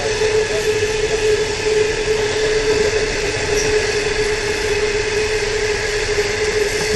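Long ore train's wagons rolling past on the rails, a steady running noise with a continuous whine held at one pitch.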